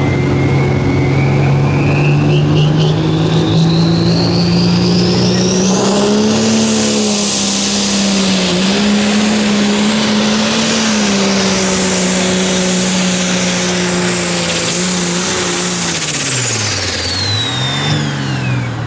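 Pulling tractor's engine running hard under load. A high whine climbs steadily over the first six seconds and holds, then falls away near the end as the engine note drops, dips twice and recovers.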